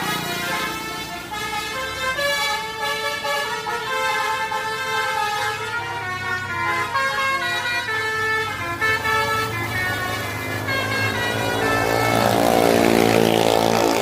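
Indonesian 'telolet basuri' musical bus horn playing a melody of stepped, held tones, with a bus engine running underneath. Near the end it all swells louder as a bus passes close.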